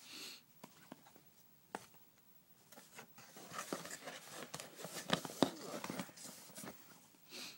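Zippo lighter boxes and their packaging being handled: rustling with scattered taps and clicks, busiest in the middle.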